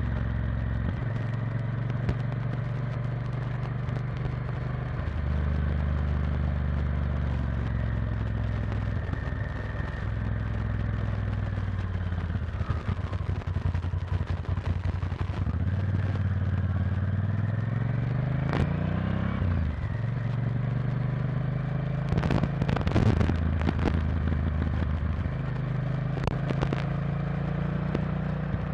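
Honda Varadero XL1000's 90° V-twin engine heard from the bike, its note shifting between steady levels with throttle and gears. A little past halfway the revs climb steadily, then drop at a gear change. A few short knocks come about three quarters through.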